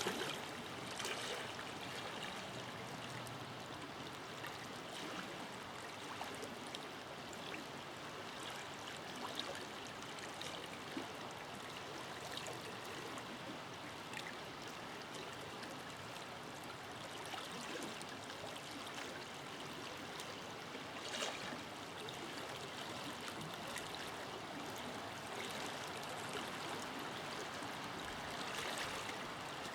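River flowing steadily, with brief small splashes scattered through the rushing water.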